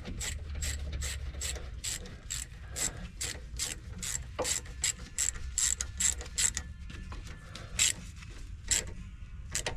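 Hand ratchet wrench clicking in a steady rhythm, about two to three clicks a second, while a front control-arm bolt is being tightened.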